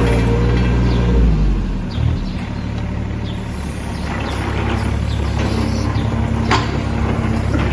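Hitachi ZX30UR-2 mini excavator's diesel engine running, its speed dropping about a second and a half in and then running steadily lower. A sharp metallic knock comes near the end.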